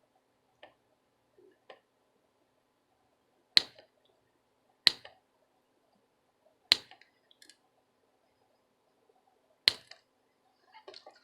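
Chip Quik low-melt removal alloy wire being snipped into small pieces: four sharp snips a second or more apart, with two faint clicks before them.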